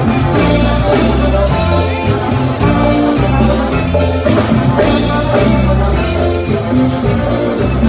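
Live band playing dance music, the drum kit keeping a steady beat under deep bass.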